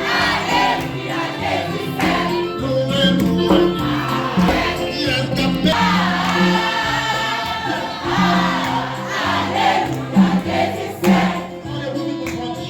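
Church choir singing a hymn with instrumental accompaniment, held bass notes moving in steps beneath the voices.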